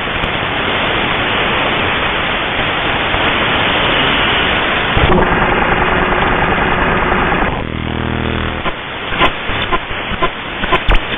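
Shortwave radio receiver hissing with static between stations. About five seconds in, a steady whistle tone comes in for a couple of seconds, then a short buzz, and from about nine seconds a run of irregular sharp clicks and pops over the noise.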